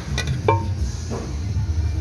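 Metal tools and loose bolts clinking while an engine's front timing cover is being unbolted: a few sharp clinks with brief ringing, the loudest about half a second in, over a steady low hum.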